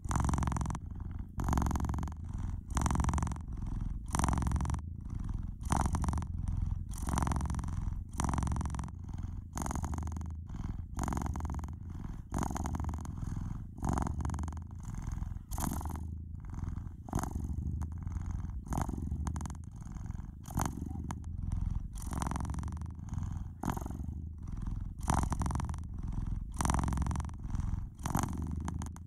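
Domestic cat purring steadily: a continuous low rumble that swells and fades with each breath in and out, roughly once a second.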